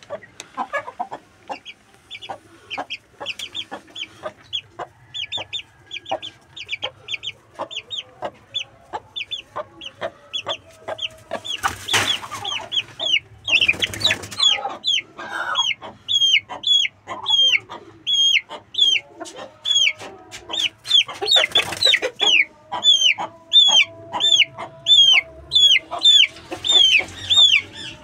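A chick peeping over and over, each peep a sharp high note that falls in pitch, two to three a second, growing louder toward the end. Lower, longer calls sound under the peeps in the second half, with scattered clicks and a few brief bursts of handling noise.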